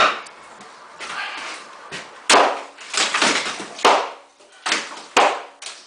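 Sledgehammer blows knocking out a wood-framed wall: about seven heavy strikes on studs and siding, irregularly spaced, most of them from about two seconds in, each with a short crack of splintering wood.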